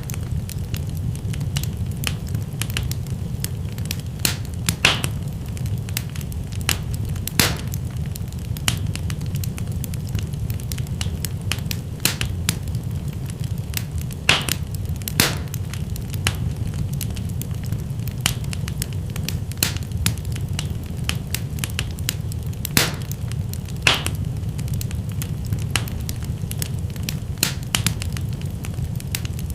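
Wood fire burning in a fireplace: a steady low rumble of flames with irregular sharp crackles and pops throughout, a few of them louder.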